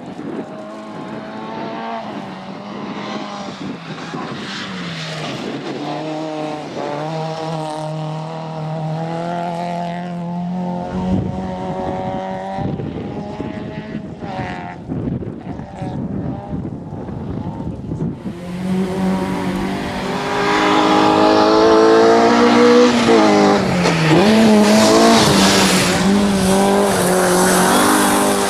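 Opel Corsa GSI rally car's engine running hard, its pitch rising and falling with revs and gear changes. It grows much louder about two-thirds of the way through, with some tyre squeal.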